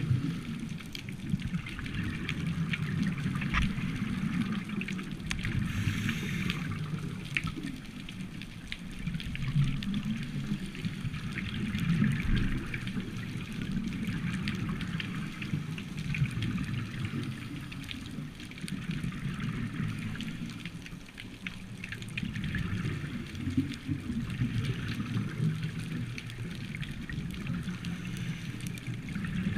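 Scuba regulator breathing heard underwater: a continuous low bubbling rumble of exhaled bubbles, with hissing breaths that come and go every few seconds.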